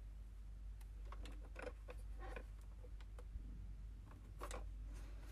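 Scattered light clicks and taps of a plastic toy truck coin bank being handled and turned over in the hands, its plastic parts knocking together, over a faint steady hum.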